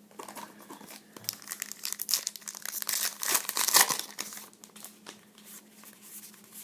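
Crinkling and tearing of a trading-card pack wrapper being opened and handled, building to its loudest about two to four seconds in, then tailing off to light rustles.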